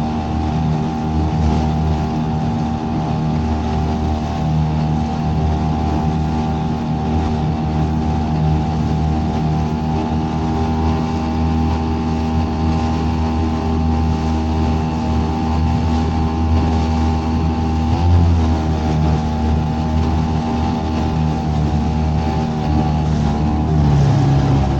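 A small boat's outboard motor running steadily while underway. Its pitch wavers briefly about three-quarters of the way through and shifts again near the end.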